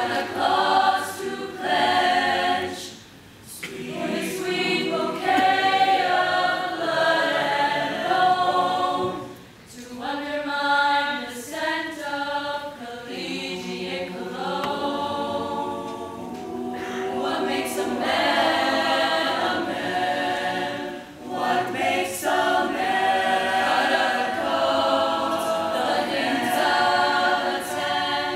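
Mixed-voice high school choir singing in harmony, in long sustained phrases, with brief breaks between phrases about three and nine seconds in.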